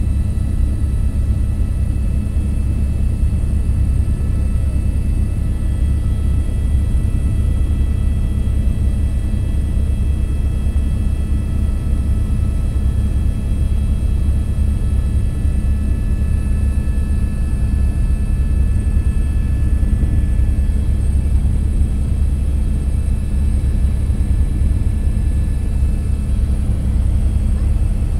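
Steady engine and airflow noise inside an aircraft in flight: a loud low rumble with faint, even high whines above it.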